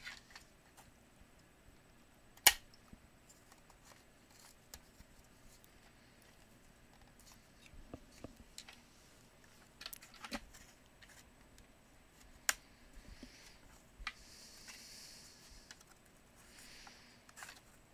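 Plastic parts of a DustBuster hand vacuum being handled during disassembly: scattered sharp clicks and knocks of the hard plastic housing, the loudest about two and a half seconds in, with a soft rustling stretch near the end.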